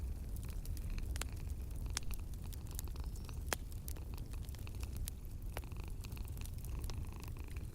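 Wood fire crackling in a fireplace, with irregular sharp pops, over a steady low rumble of a cat purring.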